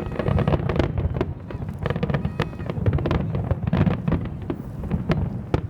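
Fireworks exploding in a dense, irregular barrage of bangs and crackles over a continuous low rumble.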